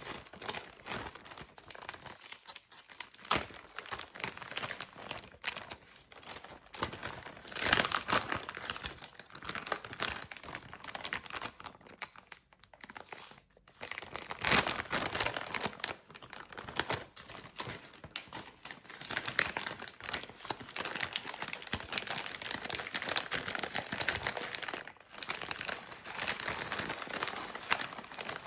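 Continuous crinkling and rustling of packaging being handled, with many small clicks and a few louder knocks, loudest about eight and fifteen seconds in.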